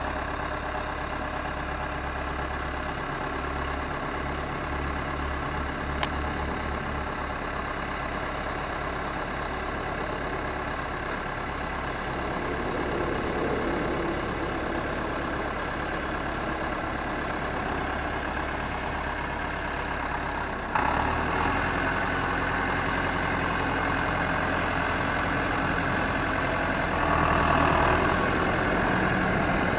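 David Brown 990 tractor's diesel engine idling just after a start, then brought up to a higher speed about two-thirds of the way through and higher again near the end as the tractor drives off.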